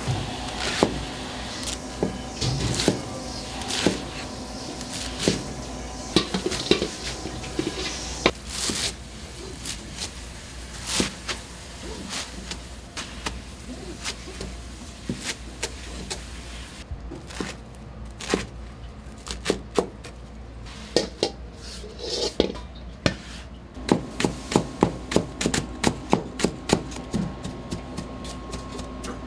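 Knife chopping on a wooden cutting board: scattered single strokes, then a quick, even run of strokes over the last few seconds.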